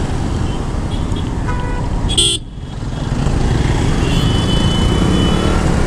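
Road traffic heard from a motorcycle riding through it: a steady low rumble of engine and wind, with short vehicle-horn toots about two seconds in and again about four seconds in.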